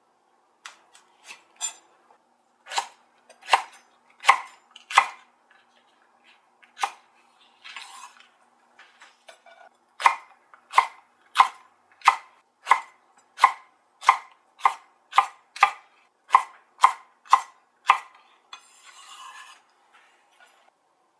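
Kitchen knife chopping on a cutting board: a few scattered strokes, then a steady run of about a dozen even chops at roughly one and a half a second, followed near the end by a short, softer scraping sound.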